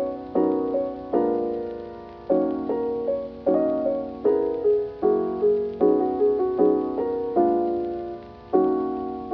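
Background music: slow keyboard chords, each struck and left to fade, in an unhurried rhythm.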